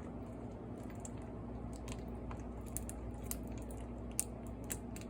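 Sticky slime being squeezed and pulled by hand, making soft wet squelches and small sharp clicks, most in the second half, over a steady low hum.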